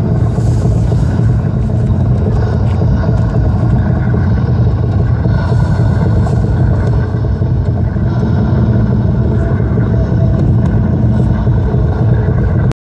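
Loud, steady low rumble with no clear rhythm.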